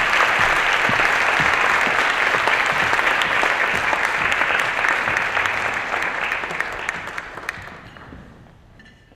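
Audience applauding, a dense steady clapping that dies away over the last few seconds.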